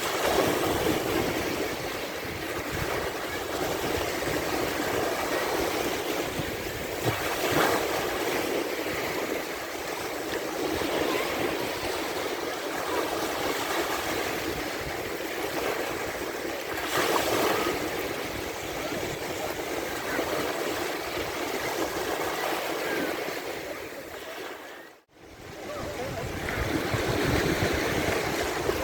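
Sea waves breaking and washing up a sandy beach: a continuous rush of surf that swells now and then as a wave comes in. Near the end it drops out for a moment and comes back.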